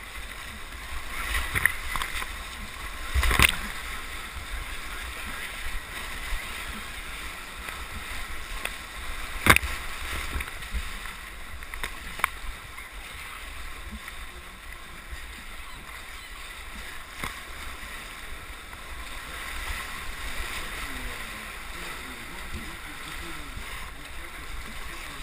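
Rushing whitewater around a kayak running a rapid, heard close-up from a camera on the boat, with a few sharp knocks and splashes, the loudest about three and nine and a half seconds in.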